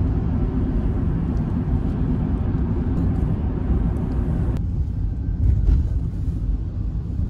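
Steady low road and engine rumble inside a moving car. About four and a half seconds in, the higher hiss above it drops away and the low rumble continues.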